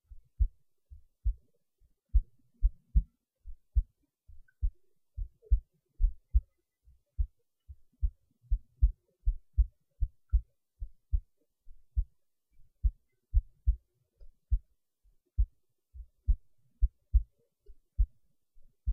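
Heartbeat recorded up close: dull, low thumps repeating steadily, many in close pairs.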